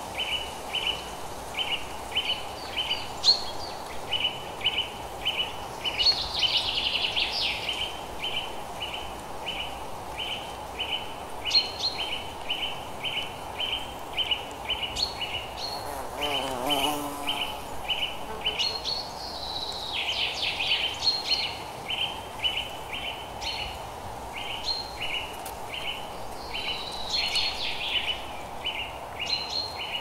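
Outdoor nature ambience: birds singing and calling in short phrases several times, over a high chirp that repeats evenly about twice a second, with a steady soft background hiss.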